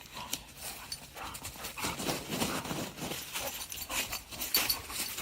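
Two dogs play-fighting: an irregular run of scuffling and rough dog noises.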